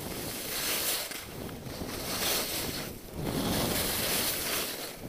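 Skis hissing and scraping over packed snow while carving down a slope, the noise swelling and easing with each turn every second and a half or two, with wind rushing over the microphone.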